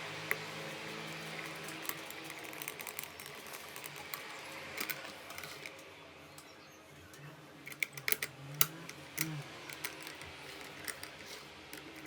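Irregular small clicks and taps of a manual coffee grinder's parts being handled and fitted, with a cluster of sharper clicks about two-thirds of the way through, over a faint steady low hum.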